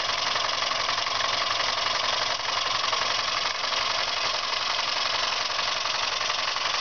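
Jensen 20-G model steam engine running steadily at speed on low-pressure steam of about 11 psi, a fast, even mechanical sound with a lot of hiss. It is belt-driving its small alternator.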